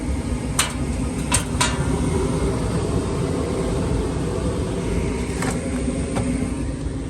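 Gas furnace running through its heating cycle with the blower motor on: a steady low rumble, with a few sharp clicks near the start and again about five seconds in. The pressure switch is now closing and the unit is running normally.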